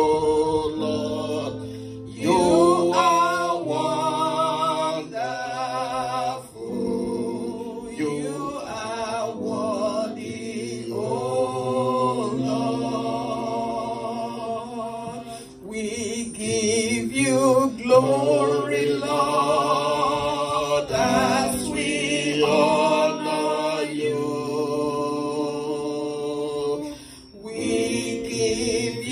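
A woman singing a gospel praise-and-worship song through a microphone, in phrases with wavering vibrato broken by short pauses, over steady low held notes.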